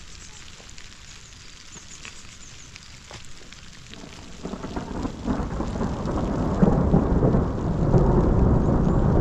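Rain falling, with faint scattered ticks at first; about four seconds in, a loud low rumble swells up and holds, the loudest sound here.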